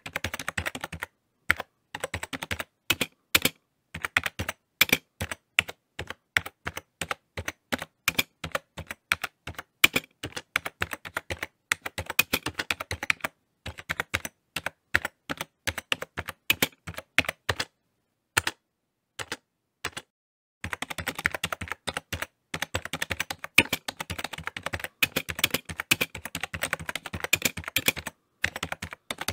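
Typing on a keyboard: fast runs of sharp key clicks broken by short pauses, the longest about two-thirds of the way through.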